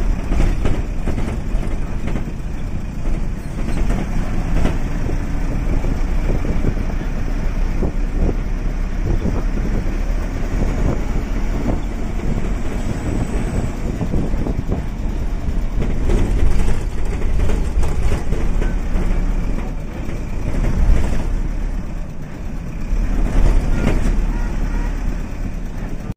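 Steady low rumble of a moving bus on the road, with frequent short rattles and knocks.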